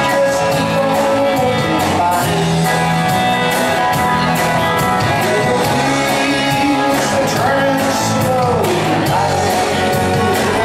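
Music with a singing voice over a steady beat.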